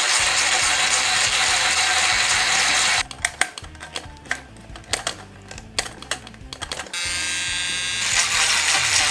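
Handheld rotary tool grinding out an undersized screw hole in a metal model part: a steady high grinding for about three seconds, then it stops. A few seconds of light clicks and taps from handling the part follow, then the tool spins up again with a steady whine and is back to grinding near the end.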